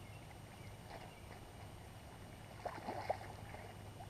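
Faint steady low background, with a short cluster of splashes about three seconds in as a caught carp is let go back into the river by hand.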